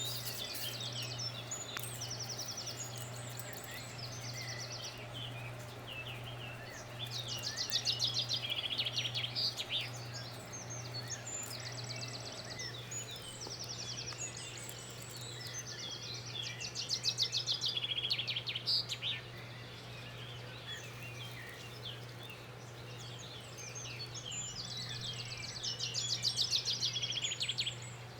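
Birds chirping, with fast trills coming in bursts every several seconds, over a steady low hum.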